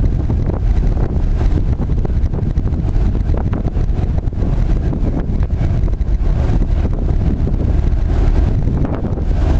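Wind buffeting the microphone on an open boat deck, over a steady low rumble.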